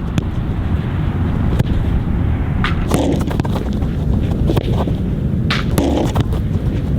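Soccer ball being struck: a handful of short, sharp knocks, the clearest about three seconds in and again near six seconds, over a steady low rumble.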